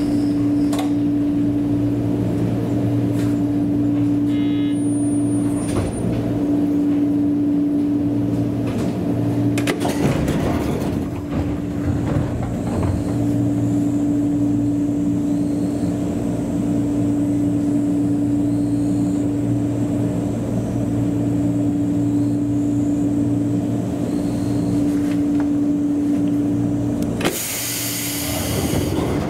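Ex-Eidan 3000 series electric train standing at a platform, its on-board equipment giving a steady electric hum. Near the end a burst of air hiss covers it for about two seconds.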